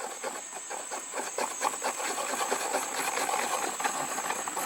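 A screwdriver stirring two-part JB Weld epoxy, hardener and steel, together on a mixing surface: a quick, irregular run of small scrapes and ticks.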